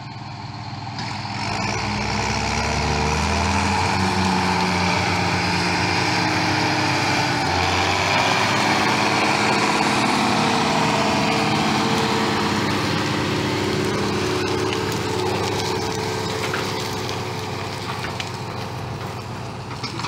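John Deere tractor's diesel engine rising in pitch as the rig pulls away with two trailers in tow, then running steadily under load as it passes close by. A few clicks and rattles near the end.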